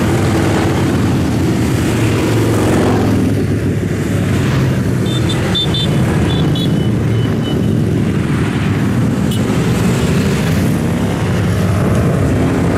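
Continuous traffic of motorcycles and cars riding past, engines running without a break. About five seconds in comes a short run of high-pitched beeps, repeated a few times over two seconds.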